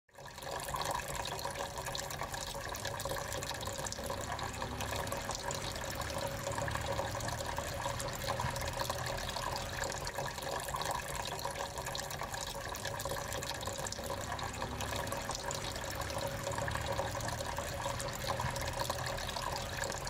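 Small tabletop water fountain running: water trickling and splashing steadily as it spills from one pot into the next and down onto pebbles.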